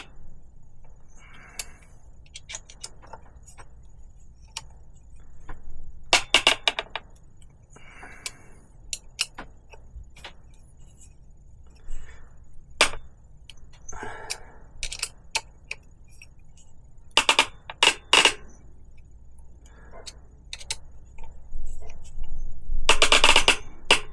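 Bolt being turned with a wrench to draw up and set a rivnut in a bicycle down tube: scattered clicks and several short pitched metal creaks, the loudest near the end. It sounds awful but feels good, a sign the rivnut is setting properly.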